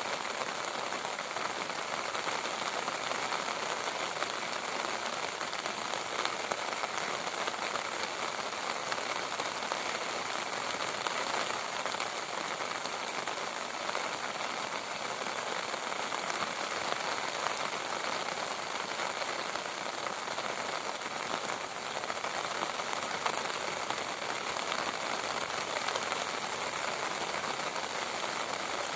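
Steady rain falling, an even dense hiss of drops striking a surface with fine individual ticks through it.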